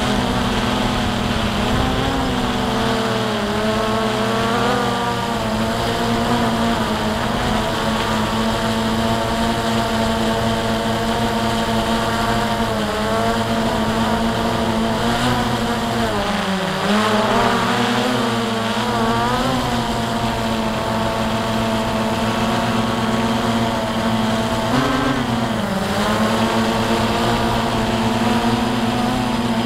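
Drone's electric motors and propellers whining steadily in flight, the pitch dipping and recovering briefly twice as the throttle changes, once about halfway through and again near the end.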